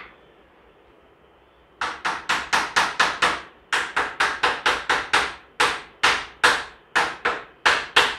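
Hammer striking the plastic corner joints at the top of a steel clothes-drying stand to seat them on the tubes. There are about two dozen sharp blows in three runs, roughly four a second, the last run slower and more spaced.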